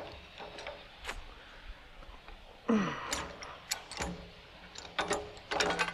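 Irregular metal clicks and clanks from a high-lift farm jack being handled, with a short falling-pitched sound about three seconds in.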